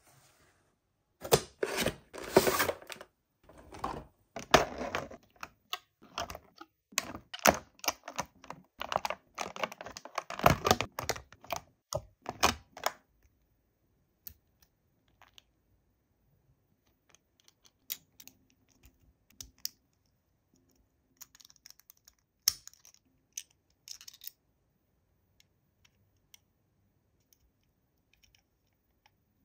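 Toy packaging being handled and opened by hand: a dense run of crinkling and clicking for about twelve seconds, then only scattered light clicks and taps.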